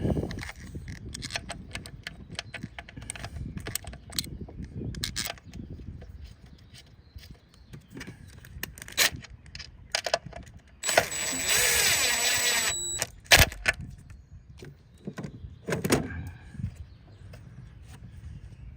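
Scattered clicks, knocks and rattles of hands working plastic ignition coil connectors and tools in an engine bay. About eleven seconds in there is a loud noise lasting about two seconds.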